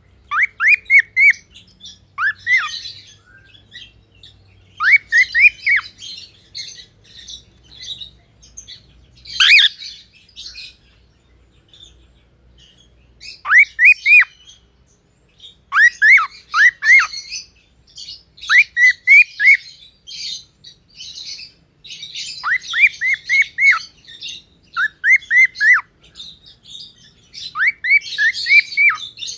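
Gray cockatiel chirping: short runs of three to five quick chirps that rise and fall, repeated every couple of seconds, with softer, higher twittering in between.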